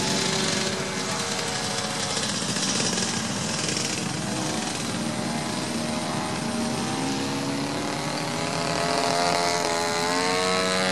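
Mintor 50cc two-stroke petrol engine of a large radio-controlled aerobatic plane running in flight. Its pitch falls over the first few seconds, then climbs again in the second half.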